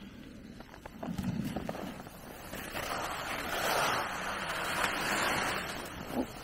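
Skis hissing and scraping over rough, chopped-up snow on a downhill run, growing louder from about halfway through, with wind buffeting the microphone.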